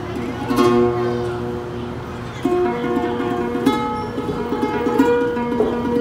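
Solo acoustic guitar played fingerstyle: a plucked melody over ringing held bass notes, with a brighter strummed chord about half a second in and another near four seconds.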